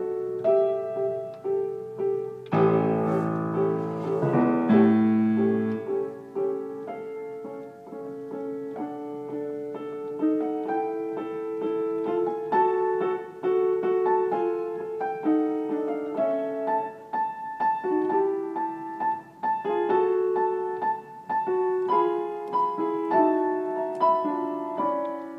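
Upright piano played by hand: a tune over repeated middle notes, with loud low chords about three to six seconds in.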